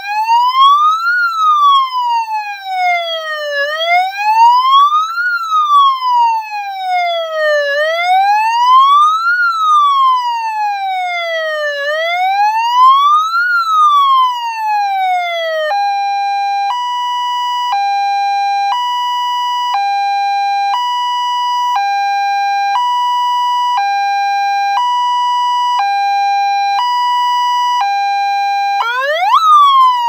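Five-tone electronic police siren sounding through its horn loudspeaker: first a slow wail, rising and falling about every four seconds, then, about halfway through, a hi-lo two-tone alternating evenly between two pitches. Near the end it switches again with a quick upward sweep into another wailing tone.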